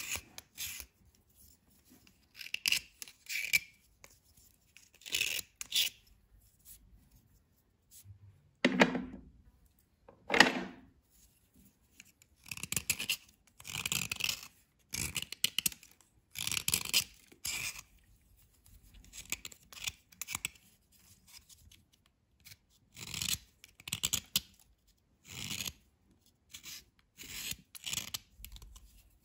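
Knife blade scraping and shaving a dry white bar in short, irregular strokes, each a rasping scratch with pauses between; two strokes about nine and ten seconds in are louder and deeper.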